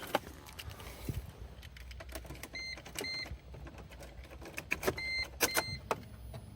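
Scattered clicks and knocks with two pairs of short electronic beeps, one pair a little past a third of the way in and one pair near the end, as of controls being operated inside a car.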